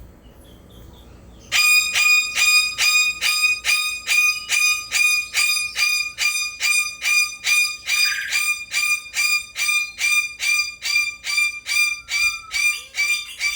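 Male eclectus parrot calling over and over, a loud, steady, evenly paced call at about two to three calls a second, starting about a second and a half in.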